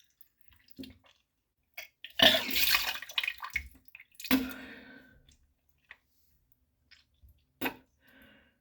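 A person vomiting from an overfull stomach: two heavy retching heaves, about two and four seconds in, each with liquid splashing, then a short sharp splash near the end and faint drips.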